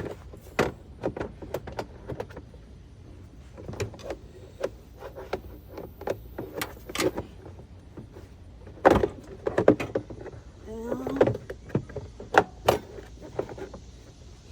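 Plastic clicks, knocks and rattles as the air filter housing cover of a 2014 Subaru Forester is handled and fitted back into place, with a brief creak of plastic rubbing on plastic about eleven seconds in. The loudest knocks come around nine and twelve seconds in.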